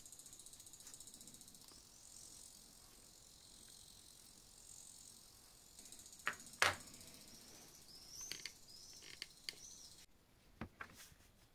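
A small metal saw frame with a wooden handle set down on a fibreboard work surface: two sharp clicks about six seconds in, then a few fainter taps and clicks over a faint hiss.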